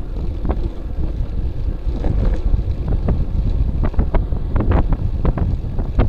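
Wind rumbling on a bike-mounted camera's microphone as a bicycle rolls along, with a scatter of irregular sharp clicks and knocks from the bike and camera mount jolting over pavement, thickest about two-thirds of the way in.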